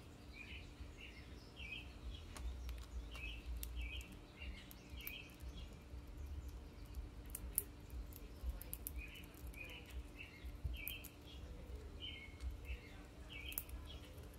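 A bird calling in short, repeated notes, about two a second, in runs of several notes with pauses between. A few sharp clicks are scattered through it.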